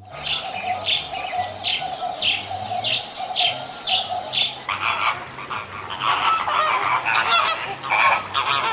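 Waterfowl honking. In the first half, one bird calls at an even pace of about two calls a second. From about halfway, several birds call over one another.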